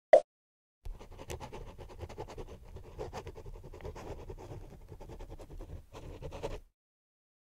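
Rapid, dense scratching and scribbling on paper, starting about a second in and stopping shortly before the end. It is preceded by one short, loud blip at the very start.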